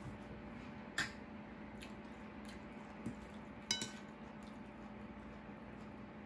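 Metal spoon and fork tapping and clinking on ceramic plates while serving food: a sharp tap about a second in and a ringing clink a little before the middle, over a faint steady hum.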